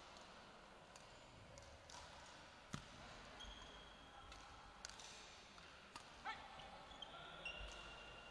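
Badminton doubles rally: a string of sharp racket strikes on the shuttlecock, the loudest a little under three seconds in, with short high squeaks of court shoes on the hall floor in the second half.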